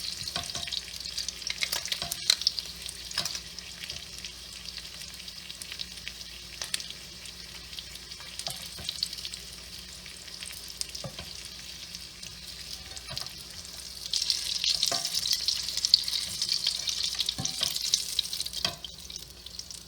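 Bluegill and rock bass fillets frying in a pan of oil: a steady sizzle with scattered pops and crackles. It grows louder about fourteen seconds in and drops away near the end.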